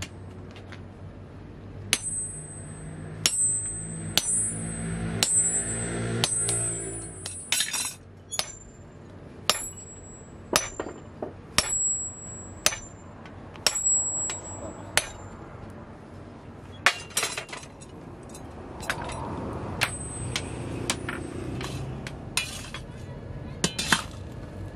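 Hammer blows on red-hot steel, driving a drift through the eye of a forged adze axe head on the anvil and swage block. Each blow ends in a high metallic ring, about one a second, with a pause of about two seconds past the middle. A low hum sounds under the first few blows and stops about seven seconds in.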